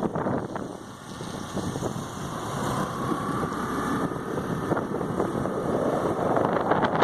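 Wind buffeting the microphone over the steady noise of a moving vehicle, with a faint thin tone in the middle.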